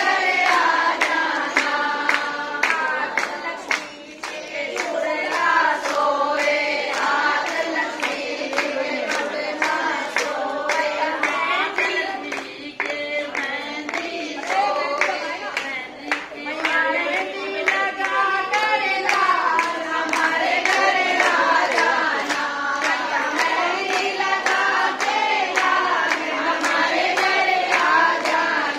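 A group of women singing a Hindu devotional bhajan together, clapping their hands in a steady rhythm to keep the beat.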